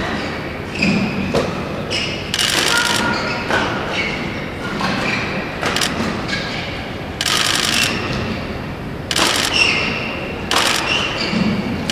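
Badminton rally: rackets striking the shuttlecock in quick exchanges, with shoes squeaking on the court mat and voices in the hall.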